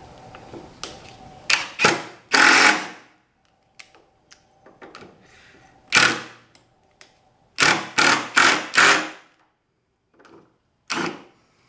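Cordless impact driver driving screws into wood in short bursts with pauses between. The longest burst comes about two seconds in, and a quick run of four short bursts comes around eight seconds.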